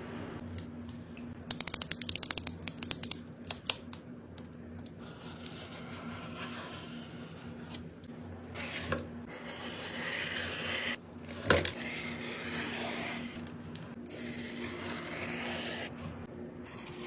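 Close-up handling of small cosmetic items: a rapid run of about a dozen clicks, then steady rubbing and scraping with one sharp click near the middle.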